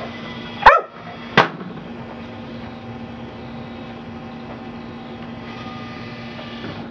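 Automatic ball-launcher fetch machine: two sharp cracks a little under a second apart near the start, then a steady low hum.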